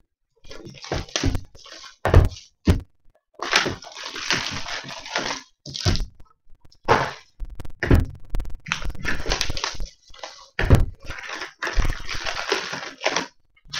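Trading cards being handled on a tabletop: cards slid, shuffled and rustled, with dull thuds as cards and hands are set down on the table several times.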